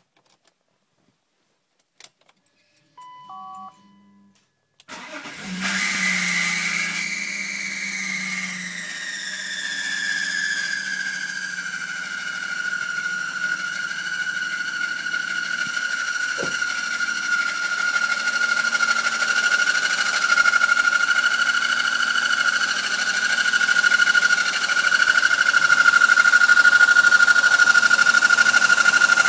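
A 1998 BMW E39's M52B28 2.8-litre straight-six starts after a click and a few short electronic beeps, then idles with a high-pitched whine. The whine falls in pitch over the first few seconds, then holds steady and grows a little louder. The owner calls it a grinding noise and found it unchanged with the accessory drive belt removed, so the belt-driven accessories are not the cause.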